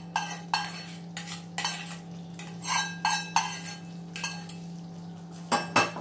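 Metal spoon scraping and tapping against a small pan while knocking fried shallots into a pot of curry, then clinking against the pot as it stirs. A series of sharp clinks and scrapes, the two loudest near the end, over a steady low hum.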